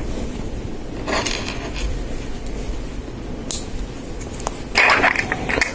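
Plastic Lego Technic pieces being handled and pressed together: short scraping and rustling with a few sharp clicks, busiest near the end.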